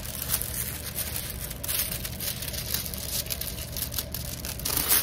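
Clear plastic sheet and a diamond-painting canvas crinkling and rustling as they are handled and smoothed flat, a run of irregular crackles.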